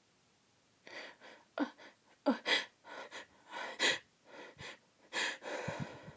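A woman's sharp gasping breaths catching in a run of about ten, starting about a second in: the build-up to a sneeze she is trying to hold back.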